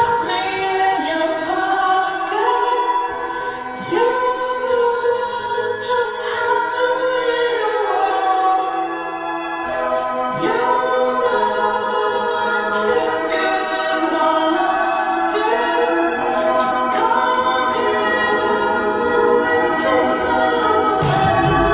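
Slowed-down indie pop song, mostly layered, choir-like vocal harmonies held on long notes, with a few faint vinyl-crackle pops.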